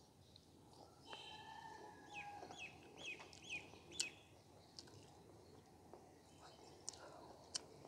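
Faint bird calls: a few held notes, then a run of short hooked calls about two a second, fading out around the middle. A few sharp clicks follow near the end.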